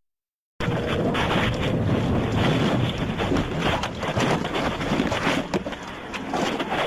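Loud rushing wind noise buffeting a microphone, with scattered crackles and knocks; the sound cuts in suddenly about half a second in after a brief dropout.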